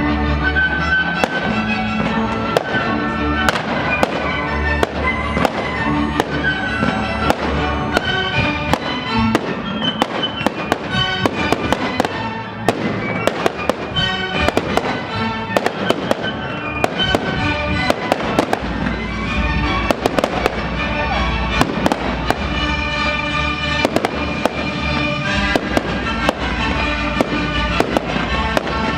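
Fireworks going off: many sharp bangs and crackles at uneven intervals, several a second at times, over music playing.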